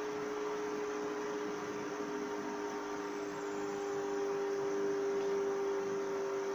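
A steady hum holding one pitch, over a constant background hiss.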